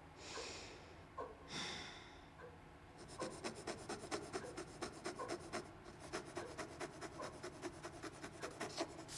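Two short breaths, then a dip pen scratching on paper in quick strokes, about five or six a second, with a brief pause midway.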